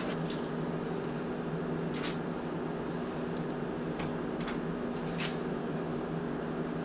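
Steady low hum made of a few constant tones, with several faint light clicks scattered through it.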